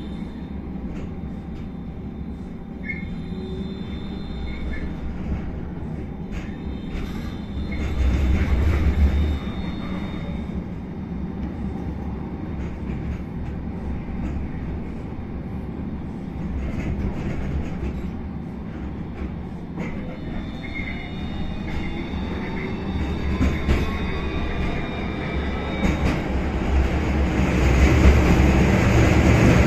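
A city tram heard from inside the passenger saloon while it runs: a steady rumble of wheels on rails and running gear, with thin high squealing tones and a brief louder rumble about eight seconds in. From about twenty seconds in, a rising whine of the traction motors grows louder toward the end as the tram picks up speed.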